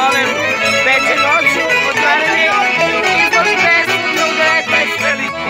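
Small live band of violin, guitar and accordion playing folk music, the violin's wavering melody over the accompaniment.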